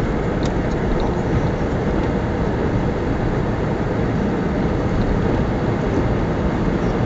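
Steady driving noise inside a van's cabin: engine and tyres rolling on a snow-packed road, an even rumble with no change in pace.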